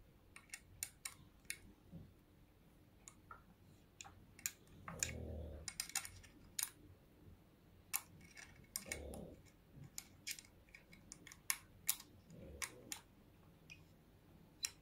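Faint, irregular metallic clicks and ticks of an Allen key turning in a focuser bracket's clamp screw as the parts are handled, with a few soft low thumps about five, nine and twelve seconds in.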